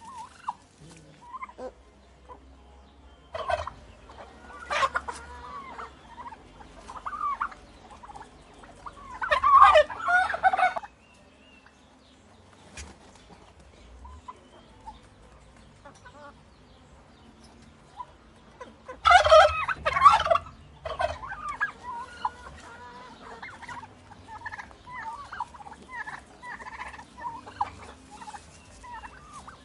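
Tom turkeys gobbling: two loud gobbles, one about ten seconds in and another near twenty seconds, with shorter, quieter calls and clucks between.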